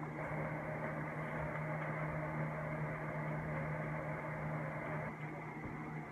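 A steady low hum with an even hiss over it, unchanging apart from a slight drop about five seconds in.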